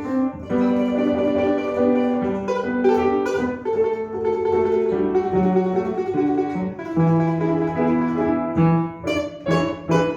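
A plucked string instrument playing a melody, its notes held and changing about every half second to a second, with lower notes sounding underneath.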